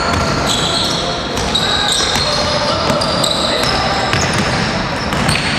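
A basketball game in an echoing gym: the ball knocks repeatedly on the court as it is dribbled, with short high squeaks from sneakers and players' voices.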